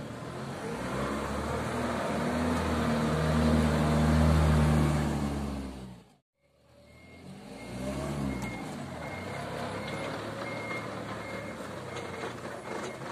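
Forklift engine revving up and held high while it works the paper-roll clamp, then cut off abruptly about six seconds in. After a brief gap the engine runs and revs again, with a reversing beeper sounding short, regular beeps.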